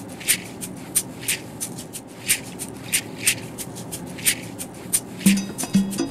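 Background music: a rhythmic pattern of short, shaker-like percussion hits, with low pitched notes coming in on the beat about five seconds in.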